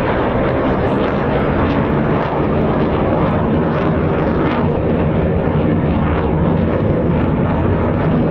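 Military aircraft engines, a loud steady noise with no clear rise or fall as the planes fly a display.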